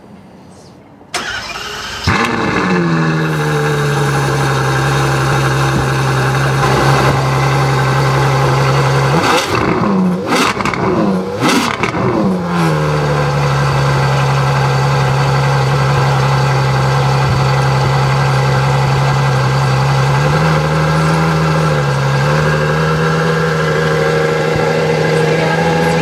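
Ferrari F12 Berlinetta's 6.3-litre V12 being started: a brief crank, then the engine catches loudly with a flare of revs that falls back to a steady idle. About halfway through it is revved in several quick blips, then settles back to the same steady idle.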